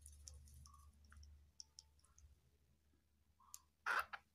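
Young flying squirrel making faint, scattered clicking sounds, then one short, louder burst of sound about four seconds in as a finger touches it.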